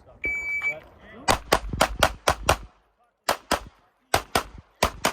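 Electronic shot timer beeps once for the start signal, then a Glock 17 9mm pistol fires twelve shots: a quick string of six, followed by three pairs.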